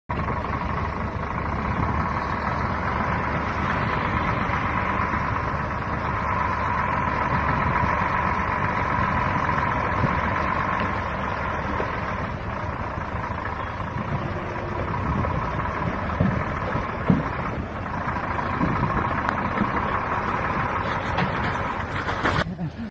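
Dump truck's engine running steadily, with a steady whine over it and a few sharp knocks about two-thirds of the way through.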